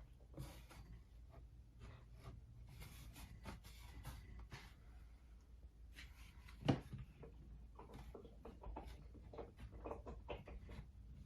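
Faint scattered taps, scrapes and rubbing from hands working wooden planks overhead, with one sharper knock about two-thirds of the way through.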